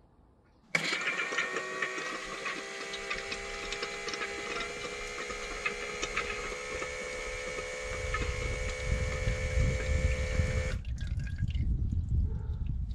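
The electric transmission oil pump of a BMW E60 M5's SMG gearbox, switched on from a scan tool, hums steadily from about a second in and cuts off near the end. It is pumping the leftover old gear oil out of the cooler and its lines, and a low splashing rumble from the oil draining out of the drain plug hole joins it in the last few seconds.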